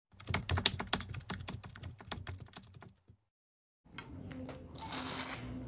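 Rapid keyboard-typing clicks, a sound effect for a title card, for about three seconds, then stopping dead. After a short silence comes the handling of a burger on a plate, with a brief crinkle of paper wrapping about a second before the end and a faint steady hum beneath.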